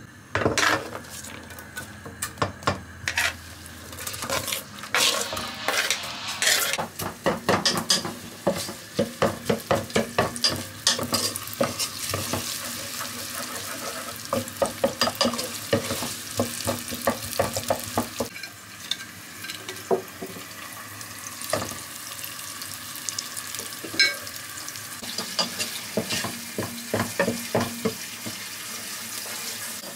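Food sizzling in a cooking pan while a utensil stirs it, with many knocks and scrapes of metal against the pan; the strokes come in quick rhythmic runs about a third of the way in.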